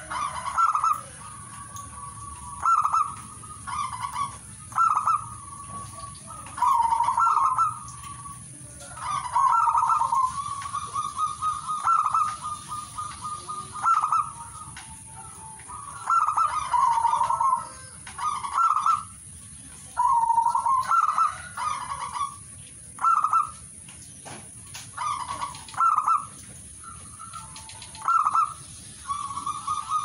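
Zebra dove (perkutut) cooing: short phrases of rapid, soft staccato notes, repeated every second or two with brief gaps. About nine seconds in, one phrase runs on into a longer trilled stretch.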